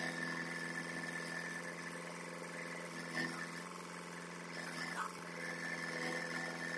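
JCB 3DX backhoe loader's diesel engine running steadily while the backhoe arm works, with a high whine over the engine drone that dips briefly about five seconds in. There is a single knock about three seconds in.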